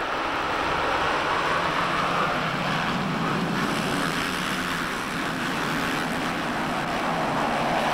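A full gate of 450cc four-stroke motocross bikes at full throttle off the start, their engines blending into one loud, steady blur of noise with no single engine standing out.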